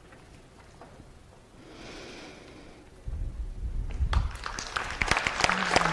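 Faint room noise, then a low rumble about three seconds in, and audience applause breaking out a second later and growing louder.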